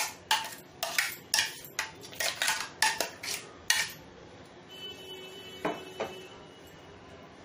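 A metal spoon scraping and tapping the inside of a steel mixer-grinder jar, a quick run of sharp clinks about three a second for the first four seconds, then one softer knock as the jar is set down.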